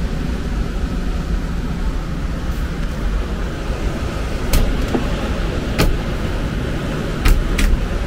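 Trane TAM9 air handler's variable-speed blower running steadily with the media filter pulled out of its cabinet, a low rumble of moving air; it has ramped down to a lower speed now that the restrictive filter is gone. A few sharp knocks about halfway through and near the end.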